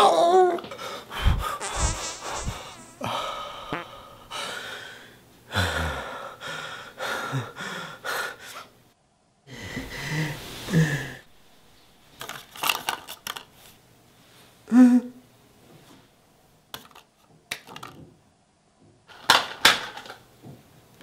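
A man's gasps and strained breathing in a small tiled bathroom, broken by a few deep thuds in the first seconds and short clicks and rustles near the end.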